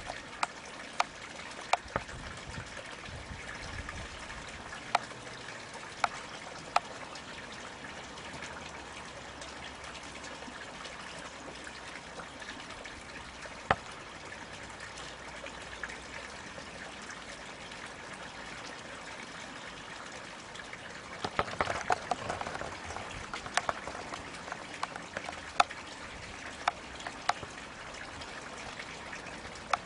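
Steady hiss with scattered sharp clicks, and a short stretch of crackling about two-thirds of the way through.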